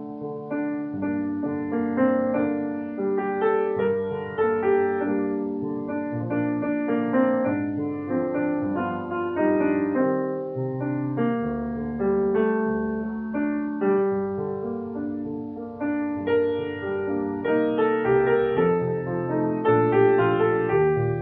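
Piano music: a steady, flowing run of notes and chords with no pauses.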